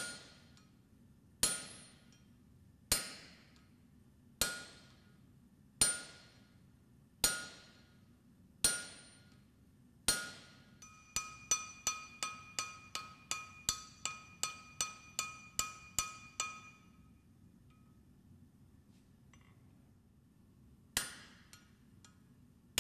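Blacksmith's hammer striking steel on an anvil, each blow ringing: seven heavy blows about a second and a half apart, then a run of lighter, quicker ringing taps at about three a second, a pause, and one more blow near the end.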